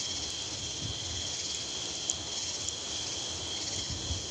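Night chorus of crickets and katydids, a steady high trill with a high buzzing haze above it, over a low rumble of wind on the microphone.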